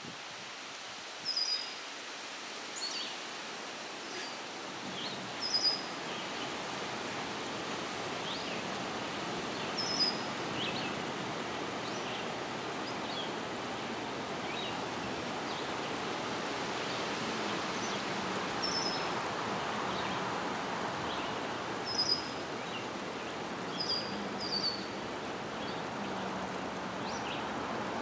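Outdoor woodland ambience: a steady rushing background noise with short, high bird chirps every few seconds.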